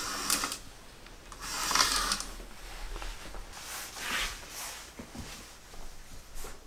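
Sheer curtain being drawn: the fabric swishes and rustles in three short bursts, near the start, just under two seconds in and about four seconds in.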